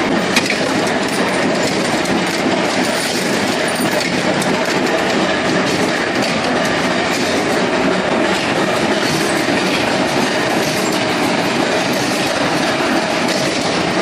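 Steady, dense clatter of a padlock workshop's power punch presses and other machines running together. Many small metallic clicks and knocks run on without a pause.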